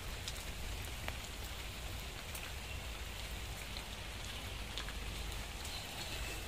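Steady rain falling, with a few faint drop ticks.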